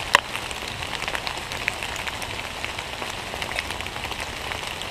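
Steady rain pattering, with many small scattered drop ticks and one louder click just after the start.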